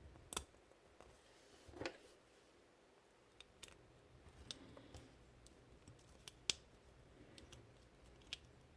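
Faint, scattered clicks and taps of small model-gun parts being fitted together by hand, the two loudest near the start and about two seconds in.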